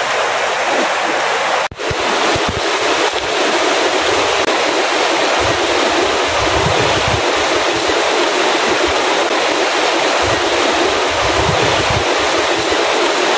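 River water rushing over rocks and shallow rapids, a loud, steady wash that breaks off for a moment about two seconds in.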